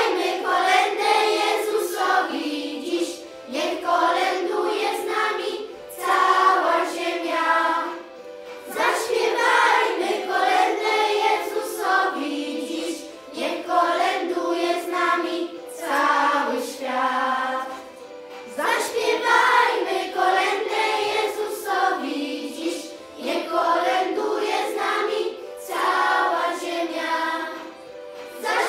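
Children's choir singing a Polish Christmas carol, in phrases a few seconds long with short breaths between them.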